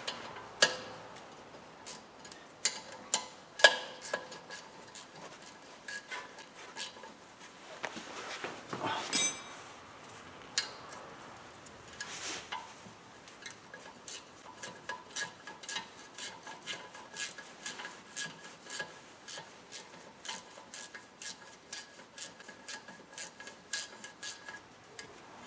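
Metal wrench clinking and scraping on a rear brake caliper bolt as it is tightened. There are a few sharp knocks in the first seconds, a scrape near the middle, and then a long run of quick, regular metallic clicks that ring briefly.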